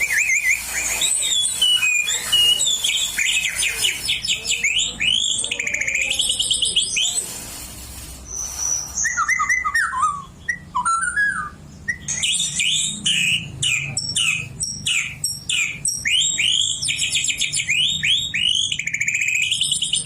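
Oriental magpie-robin (kacer) singing a loud, rapid, varied song with phrases copied from the white-rumped shama (murai batu). The song briefly drops off about seven seconds in, then returns with some lower whistled notes and, from about twelve seconds, fast repeated whistled phrases.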